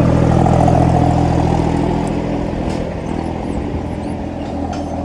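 Farm tractor engine running steadily under load while cutting the soil, its level gradually falling after about two seconds.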